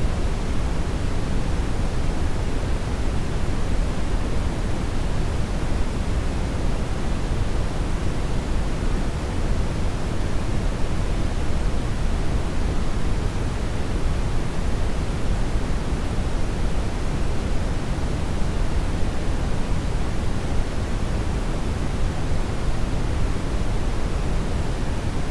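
Steady, unbroken synthetic noise: an even rush with no events or changes, strongest in the bass and fading toward the treble, like pink noise.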